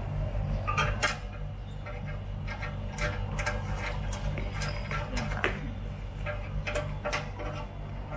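Scattered light clicks and taps from hands handling the black metal TV stand parts, over a steady low hum.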